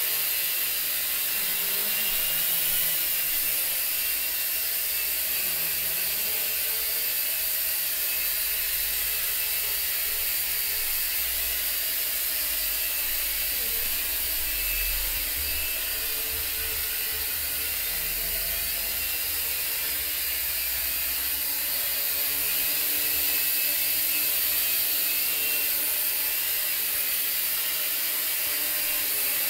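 J Perkins Twister toy quadcopter hovering, its four small electric motors and propellers giving a steady, high-pitched buzzing whine.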